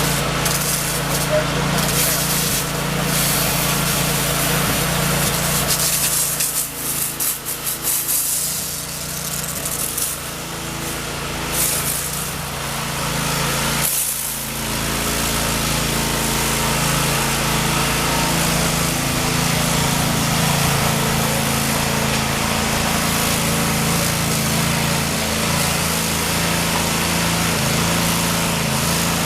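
Gas pressure washer's small engine running steadily while the high-pressure spray hisses against a surface. The spray changes several times between about six and twelve seconds in and breaks off briefly about fourteen seconds in.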